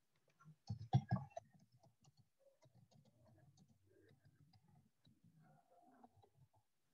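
Computer keyboard keys clicking as text is typed: a quick cluster of louder clicks about a second in, then faint scattered taps.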